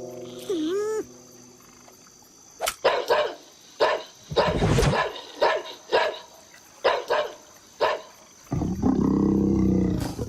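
A cartoon animal voice giving a series of short, dog-like barks and yelps, about nine in quick succession, followed near the end by one longer drawn-out cry.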